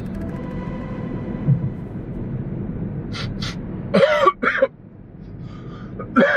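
A man sniffs twice, then coughs and gags in short bursts, a reaction to a bad smell in a car cabin. A steady engine and road hum runs underneath.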